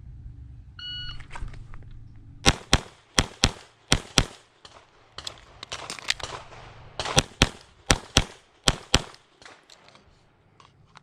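Shot timer start beep about a second in, then a Sig Sauer P229 Legion RX pistol firing twelve shots of the President drill: three quick pairs, a pause of about three seconds for the reload, then three more quick pairs, about 8.2 seconds from beep to last shot.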